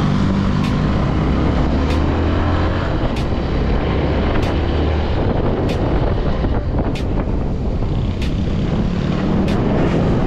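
Motorcycle engine running steadily while riding, under a continuous rush of air noise, with a light click repeating about every second and a quarter.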